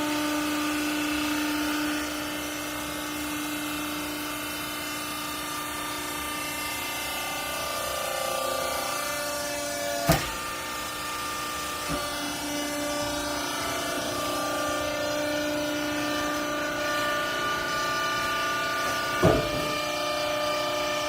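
Vertical rag baler's hydraulic power unit running with a steady whine, its tones shifting a few times. Two sharp knocks ring out, about ten seconds in and near the end.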